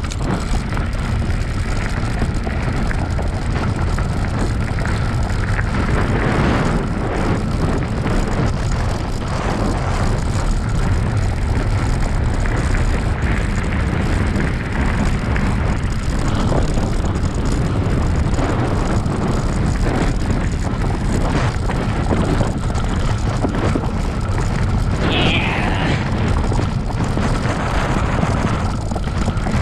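Bicycle rolling fast over a dirt trail, with steady wind rush on the microphone and rattle from the bike. About 25 seconds in, a brief high squeal falls in pitch.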